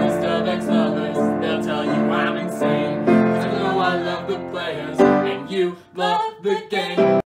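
Upright piano playing sustained chords, with a voice singing along. After about five seconds the playing turns choppier, and it cuts off abruptly at the very end.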